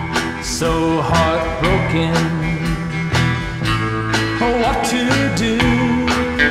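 Late-1950s to mid-1960s rock and roll record playing, with guitar over a steady drum beat and some sliding notes.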